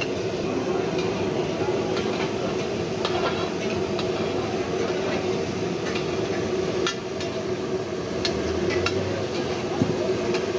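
Metal cooking utensils knocking and clinking in irregular strikes, with a cluster of sharper knocks in the second half, over a steady din of a busy street-food stall.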